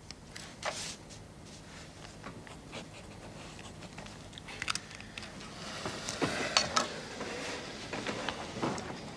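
Paper rustling and small clicks as papers are handled on a desk, faint at first and getting busier about six seconds in, with a few sharper clicks.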